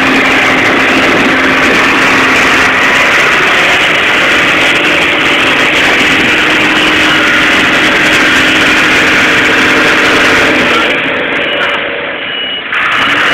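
MAN rigid lorry's diesel engine running close by, a loud, steady engine noise with a held low note. The sound drops away about eleven seconds in, then grows loud again just before the end.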